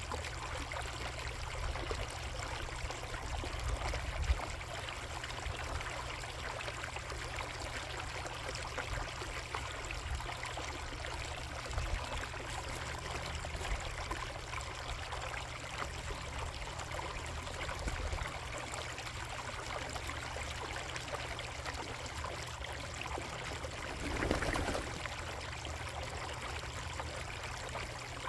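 Water running and trickling steadily into a koi pond, with a low rumble underneath. About three-quarters of the way through it swells louder for a moment.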